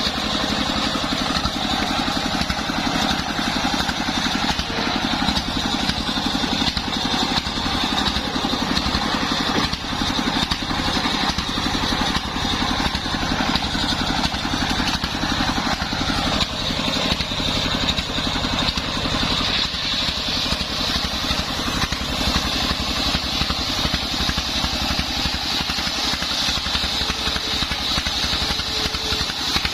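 Engine-driven homemade circular sawmill running steadily while sawing sengon wood: an even engine drone under a steady high whine and hiss from the blade.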